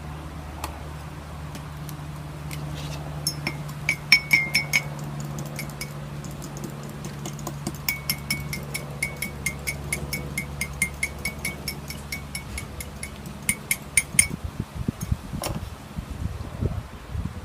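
A fork beating an egg to scramble it, clinking against its container in quick strokes, about three to four a second. A steady low hum runs underneath.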